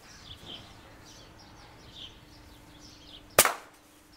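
A single sharp report from an air rifle about three and a half seconds in: a shot at a rat that misses, the holdover misjudged. Faint bird chirps sound before it.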